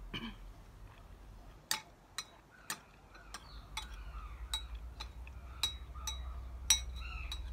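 A metal spoon clinking and scraping against a ceramic bowl as food is scooped up, about a dozen light, ringing clinks at an uneven pace, starting a couple of seconds in.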